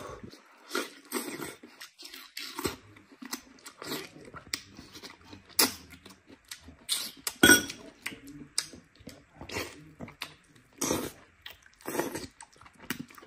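Close-miked wet chewing, lip-smacking and slurping as a man bites and sucks tendon and meat from a saucy, spicy sheep leg. Irregular sharp mouth smacks, the loudest about seven and a half seconds in.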